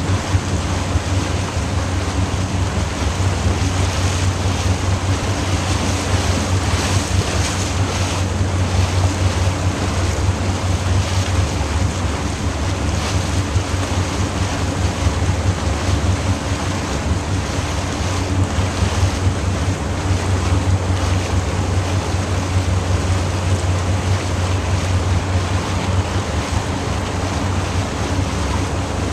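Wind buffeting the microphone over the steady low drone of a small boat's engine, continuous and unchanging.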